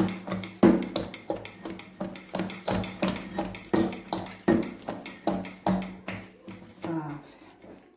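Risen yeast dough being punched and pressed down by hand in a stainless steel bowl to knock the air out: a steady run of soft thumps and slaps, about two or three a second, thinning out near the end.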